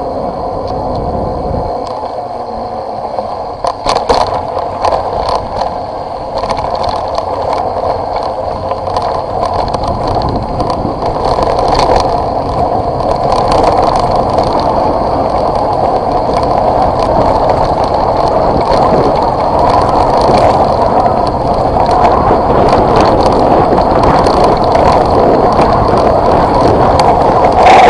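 Wind and tyre noise on a vehicle-mounted action camera running downhill, first on a paved road and then on a rough gravel and dirt track, with scattered knocks and rattles from bumps. The noise grows louder about a third of the way in.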